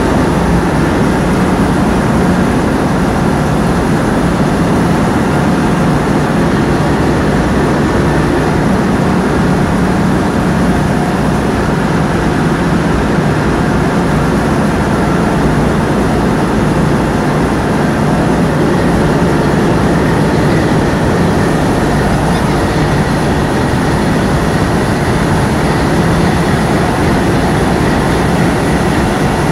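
Tugboat's Niigata marine diesel engine running steadily, a loud, even drone with no let-up.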